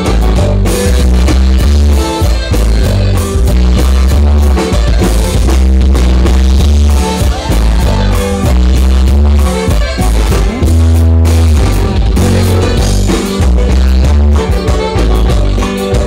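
Loud norteño band music for dancing, with a heavy bass line and a steady beat.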